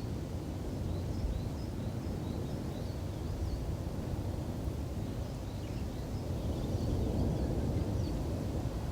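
Steady low rumbling outdoor noise, with small birds chirping repeatedly throughout.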